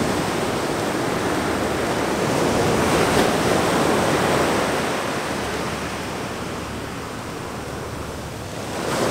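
Ocean surf breaking and washing up the sand: a steady rush that swells about three seconds in and eases off later on.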